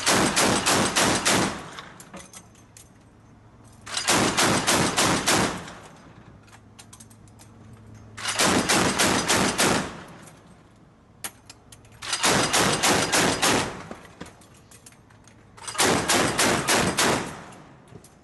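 Mk 38 25mm machine gun system, an M242 Bushmaster chain gun, firing on automatic in five short bursts of several rounds each, a few seconds apart.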